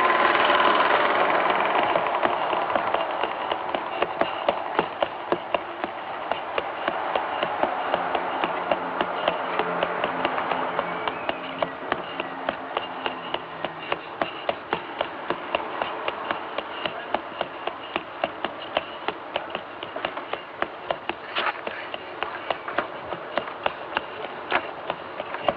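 A child's shoes running on a paved street: quick, even footsteps over a steady hiss that is loudest at the start.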